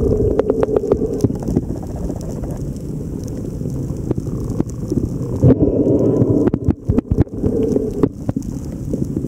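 Underwater audio of the sea: a steady low rumble of water moving around the camera, with scattered sharp clicks, clustered in the first second and again from the middle to near the end.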